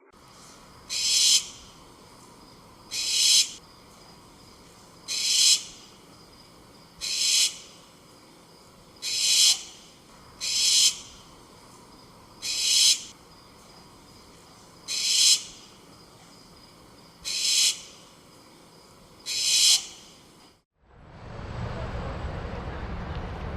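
A short, hissy, high-pitched animal call, repeated ten times about every two seconds. Near the end it cuts to a steady low rumbling noise.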